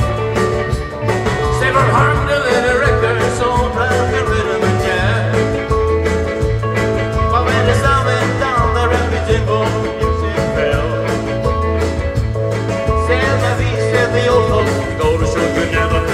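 Live rautalanka band playing at full volume: electric guitar melody over a walking bass line and a steady drum beat.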